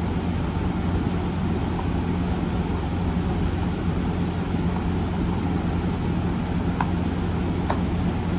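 A steady low machine hum with a hiss over it, and two light clicks near the end.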